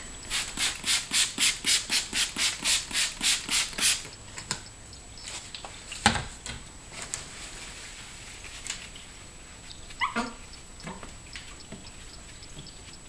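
Trigger spray bottle squirting water onto window glass: a quick even run of about fourteen hissing sprays, roughly four a second, stopping about four seconds in. A sharp click follows about two seconds later, and a brief squeak about ten seconds in.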